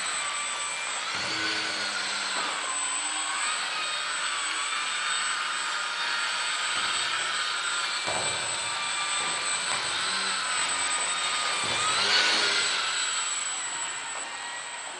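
The small electric motor and propeller of an indoor F3P aerobatic model plane whine steadily, their pitch gliding up and down with the throttle as the plane manoeuvres. The sound swells to its loudest about four-fifths of the way through.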